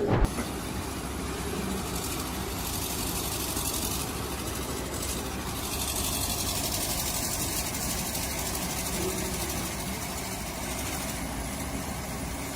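A heavy machine's engine running steadily.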